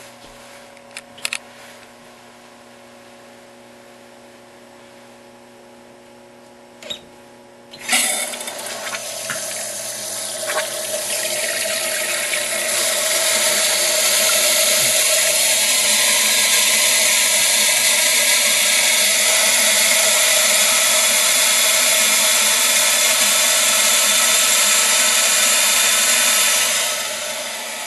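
A new toilet tank filling through its green float-cup fill valve after the water supply is turned on. Water starts hissing suddenly, grows louder over the next few seconds, then runs steadily, and eases near the end.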